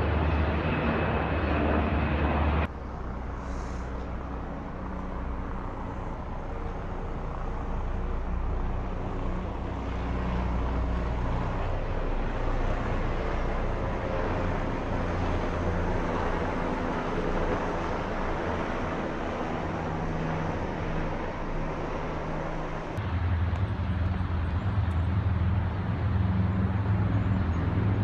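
Helicopters flying overhead: a steady rotor and turbine drone with a heavy low rumble. The level drops suddenly about two and a half seconds in and jumps back up near the end, as one helicopter's sound gives way to another's.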